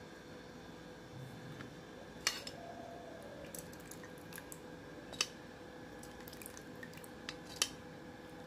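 Faint trickling and dripping of curry-leaf oil poured from a pan through a cotton cloth over a strainer, with a few sharp clicks.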